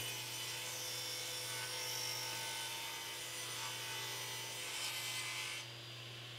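Power saw running steadily while ripping wide boards lengthwise into narrower strips: a continuous whirring hiss over a low hum. It cuts off suddenly near the end, leaving only a faint hum.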